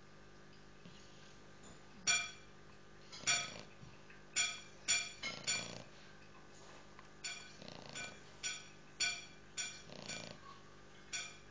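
English bulldog puppy snoring softly, broken by about a dozen short, high-pitched squeaks that ring briefly, coming every half second to second and loudest about two to five seconds in.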